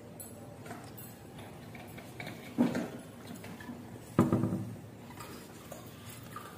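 Eating at the table: fingers mixing rice on steel plates and chewing, with small clicks. Two louder short sounds come about two and a half and four seconds in.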